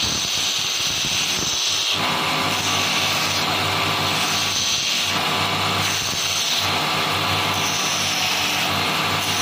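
Motor-driven belt grinder running steadily with a low hum, the abrasive belt grinding a knife's bone handle pressed against it. The grinding sound shifts every second or two as the handle is worked against the belt.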